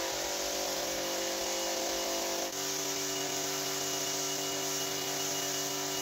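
Pressure washer running steadily, its pump humming under the hiss of the water jet spraying onto a soaked rug. The hum's pitch drops abruptly about two and a half seconds in.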